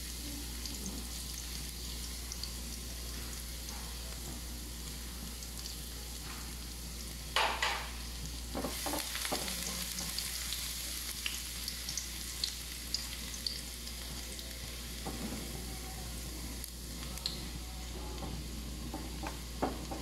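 Minced garlic sizzling in hot oil in a wok, a steady hiss, while a silicone spatula stirs it with scattered scrapes and taps against the pan. The loudest clack comes about seven seconds in.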